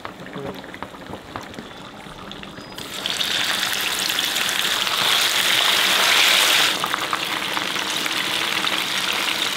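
Whole marinated fish deep-frying in hot oil in a frying pan: after a quieter start, a loud, steady sizzle sets in about three seconds in, peaks for a few seconds, then eases slightly.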